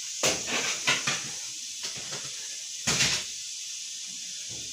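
A hand rubbing and scraping flour and melted butter against a glazed clay mixing dish: a few brief gritty scrapes, the strongest about three seconds in, with quiet between.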